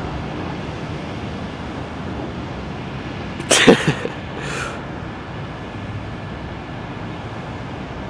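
Steady outdoor traffic noise from a parking lot, broken about three and a half seconds in by a sudden loud burst of noise and a fainter, shorter one a second later.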